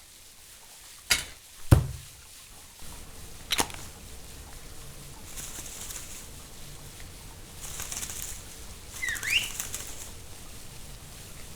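Foley sound effects for an animated scene: three sharp knocks in the first few seconds, then two spells of rustling like flapping wings, and a short squeaky call that dips and rises about nine seconds in.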